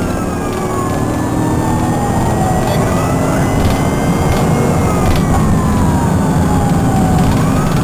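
Police car siren in a slow wail, its pitch rising and falling about every four seconds, over the engine and road noise of the moving patrol car, heard from inside the car.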